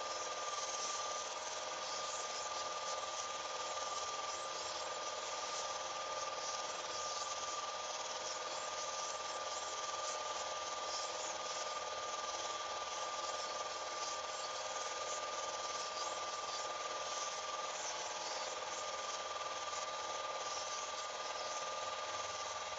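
Film projector running: a steady mechanical whir with a constant high whine over it.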